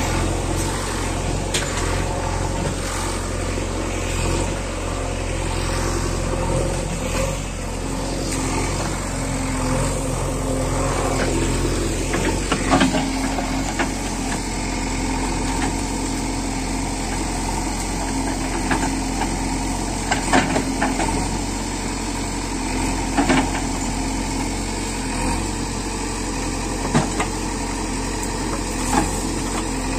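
Diesel engine of a JCB 3DX backhoe loader running steadily, with a few short sharp clanks scattered through.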